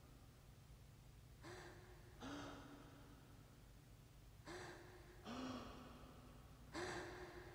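Quiet, heavy breathing: a voiced breath in, then a lower-pitched breath out, repeating about every three seconds.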